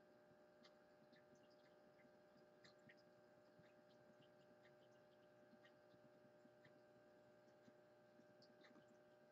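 Near silence: a faint steady electrical hum, with scattered faint tiny ticks.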